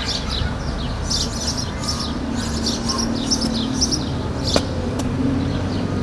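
Small birds chirping repeatedly in quick, short, falling notes over a steady low background rumble, with two sharp clicks about four and a half and five seconds in.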